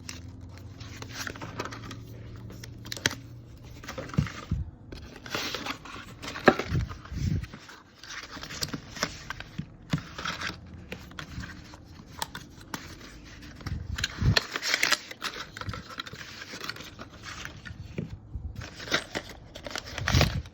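Packaging being opened and handled by hand: irregular tearing, scraping and crinkling with scattered sharp clicks and knocks, over a low hum in the first few seconds.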